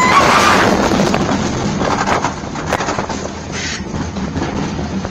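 Wild Cat roller coaster train running along its track, a steady rush of wind and rattling that is loudest in the first second. A high wail from just before trails off in the first half second.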